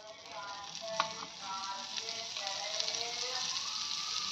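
Butter sizzling on a hot tawa, the hiss building over the first second or two and then holding steady, with a light tap about a second in.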